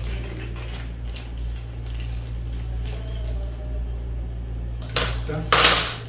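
Small parts and packaging handled on a table, with faint clicks, then two short, loud rustles or scrapes about five seconds in. A steady low hum runs underneath.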